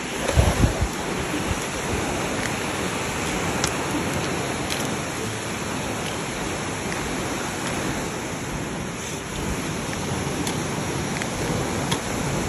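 Steady rushing of falling water from a waterfall. A few gusts of wind rumble on the microphone about half a second in.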